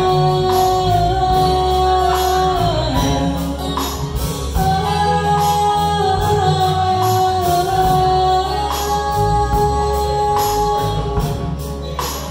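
Live band playing a song: a woman sings long held notes over acoustic guitar, electric guitar, bass and a drum kit with steady cymbal strokes.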